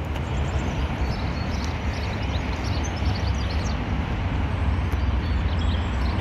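Steady vehicle noise: a low rumble under a hiss, with faint short high chirps.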